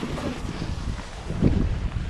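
Wind buffeting a camera microphone during a ski run: a low rumble that swells about one and a half seconds in.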